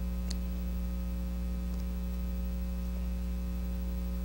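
Steady electrical mains hum with its overtones, an even low drone that does not change, and one brief faint click shortly after the start.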